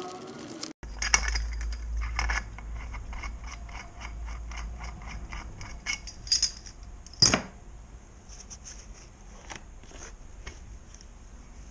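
Hand work on the crankcase-splitting puller and the motorcycle engine's metal cases: a run of even, sharp metallic clicks, about four a second, then a few louder metallic clinks and knocks about six and seven seconds in.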